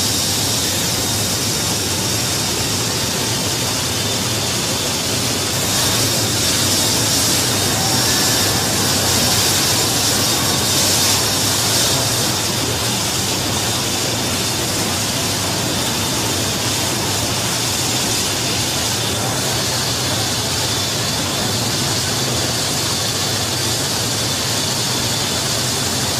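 Loud, steady rush of wind and jet-engine noise inside a C-17 Globemaster III's cargo hold with the paratroop door open in flight, with a faint high whine running through it. It swells a little for a few seconds in the middle.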